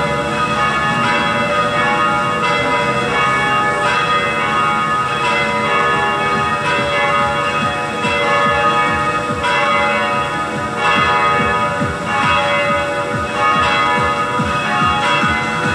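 A set of three large cast church bells, about 1800 kg together, ringing for Sunday evening Mass. A new stroke comes about every second and a quarter, each ringing on into the next, so the bells form one dense, continuous clang of many tones.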